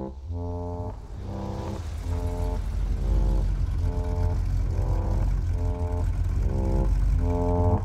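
Chevrolet El Camino driving up and pulling to a stop, its engine rumbling and growing louder from about a second in. Brass music plays throughout, in short repeated chords.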